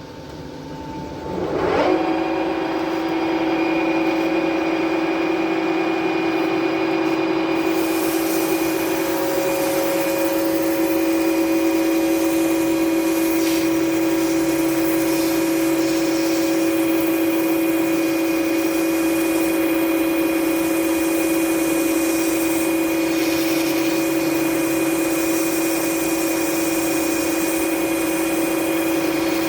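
Metal lathe starting up, its motor whine rising in pitch, then running at a steady speed with a steady whine, spinning a rusty half shaft to clean it up. A rougher hiss joins from about eight seconds in.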